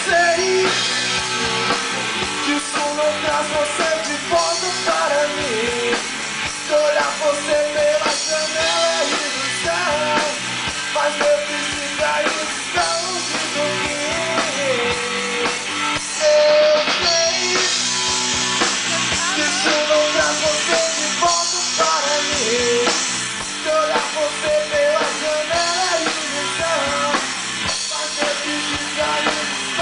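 Live rock band playing a song: electric guitars and a drum kit keeping a steady beat, with a melody line wavering over them.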